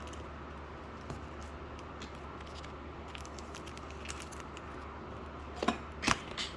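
Steady low hum and faint hiss with a few light ticks, then two sharp clicks close together near the end.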